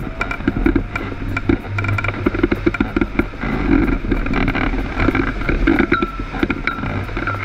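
Wind rushing and buffeting over a camera microphone on a hang glider in flight, loud and gusty with constantly shifting level.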